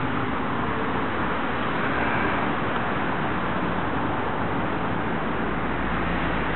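Steady rumble of road traffic, an even noise with a strong low drone and no distinct events.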